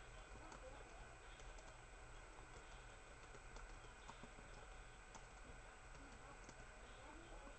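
Near silence with faint, irregular clicks of typing on a laptop keyboard over a steady low hum.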